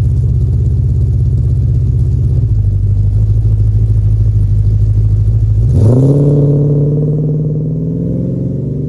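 1985 Holden VK Commodore Calais engine running with a steady low rumble. About six seconds in the revs rise sharply, then ease back down slowly.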